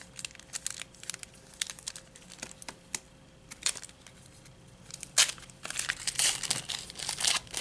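Handling of trading cards and foil card-pack wrappers: scattered light clicks and crinkles, then from about five seconds in a denser stretch of crinkling and tearing as a foil pack is handled and torn open.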